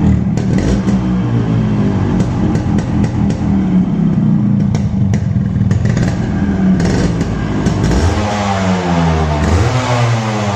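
Yamaha RX-100's two-stroke single-cylinder engine running after two years of standing, held fairly steady and then revved up and down several times in the last few seconds, with sharp ticking clatter in the first half.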